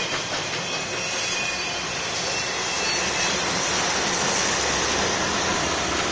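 Rear distributed-power locomotives of a double-stack container train, a GE Dash 9-44CW and an ES44DC, passing close by. Their diesel engines run under the steady loud noise of steel wheels on the rail.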